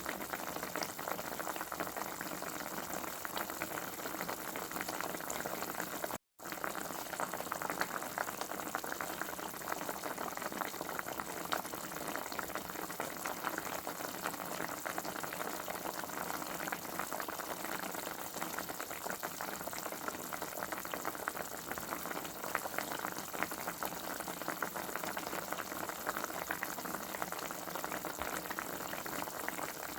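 Food cooking on the stove, a steady bubbling and crackling sizzle. It cuts out completely for a split second about six seconds in.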